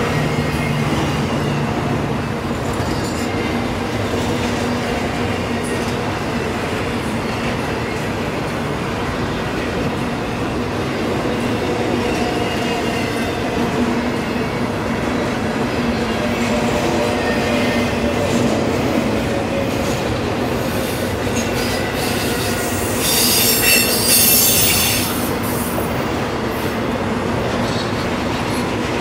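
Freight train of loaded intermodal container well cars rolling past, a steady rumble and clatter of steel wheels on rail with a faint squeal. About 23 seconds in, a louder, high-pitched wheel screech lasts roughly two seconds.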